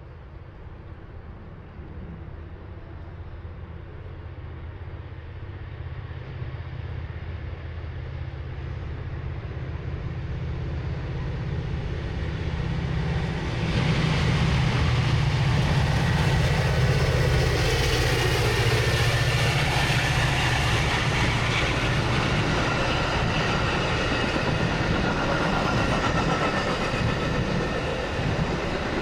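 A train approaching, its low hum growing steadily louder for about fourteen seconds, then passing close with a loud, steady noise of wheels on rail.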